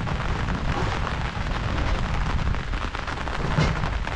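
Steady rain falling, a dense patter of drops with a strong low rumble underneath.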